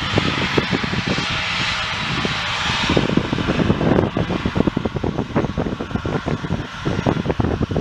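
Aircraft engine noise, with the higher hiss easing off about three seconds in, overlaid by irregular low thumps of wind buffeting the microphone.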